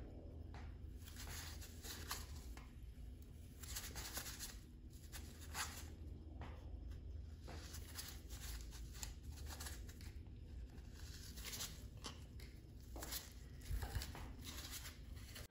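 Faint, irregular scraping strokes of a cardboard edge over the porcelain enamel of a cast iron tub, wiping off excess porcelain chip-fix filler, over a low steady rumble.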